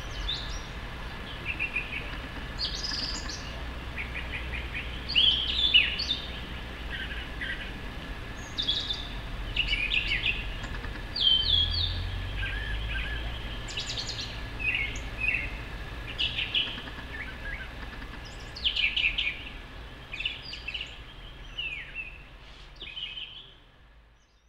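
Brown thrasher singing: a long string of varied, quick phrases, many given twice in a row, with short gaps between them. The song fades out near the end.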